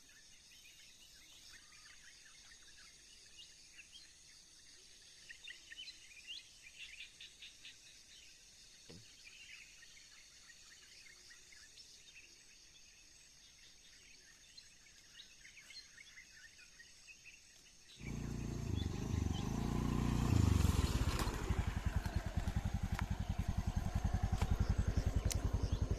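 Faint insect and bird chirps over a quiet background, then, about two-thirds of the way in, a small engine comes in suddenly and runs with a fast, even putter.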